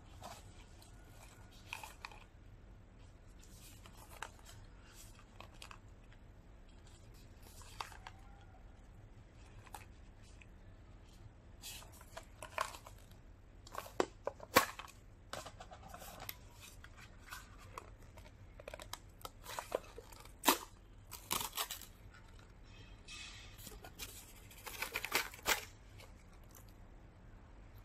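Paper popcorn tub being handled and its foil lid seal peeled back: scattered crinkling, tapping and tearing, with louder bursts of peeling in the second half.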